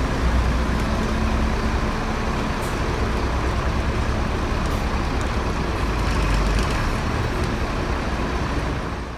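Marcopolo Viaggio 1050 coach bus running as it drives slowly out of a workshop hall, a steady engine rumble heavy in the low end.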